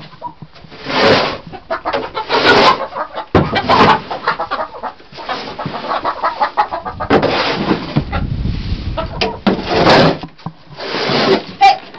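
Red plastic snow shovel scraping and scooping straw bedding off a chicken coop floor in repeated strokes a second or two apart, with hens clucking around it.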